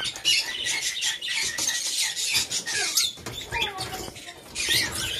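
A pair of peach-faced lovebirds chattering in rapid, high-pitched chirps and squeaks, a few notes sliding up or down in pitch.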